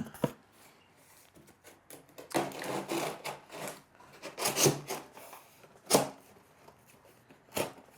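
Folded cardboard shelf pieces scraping and rubbing as they are slid into the slots of a cardboard shelving frame, with two short sharp taps near the end.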